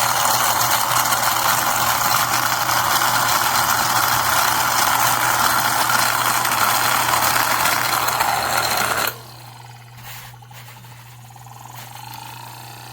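Mini desktop vacuum cleaner running with a steady whir, switched off abruptly about nine seconds in.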